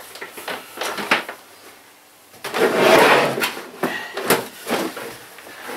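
Handling sounds as an electrical cable is pulled through and things behind a desk are shifted: light knocks and clicks, with a louder scraping rustle lasting about a second from about two and a half seconds in.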